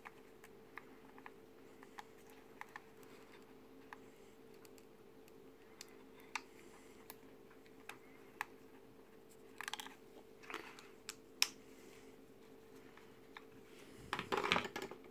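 Small plastic model-kit parts being handled and fitted by gloved fingers: scattered faint clicks and taps over a steady low hum, with louder scraping and rustling about ten seconds in and again near the end.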